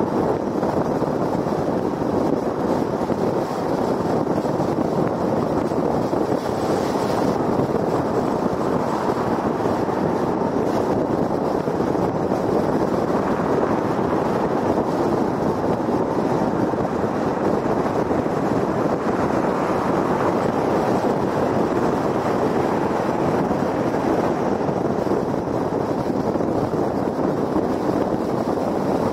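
Steady road noise of a car cruising at highway speed: tyres on concrete pavement and wind, an even noise that holds level throughout.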